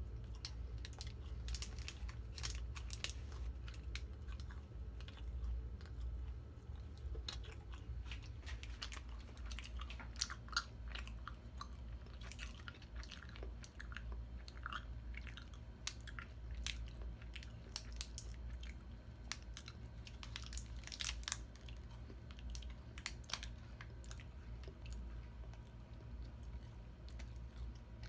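A person biting and chewing a chocolate-coated snack bar close to the microphone, with scattered crunches and wet mouth clicks, over a steady low hum.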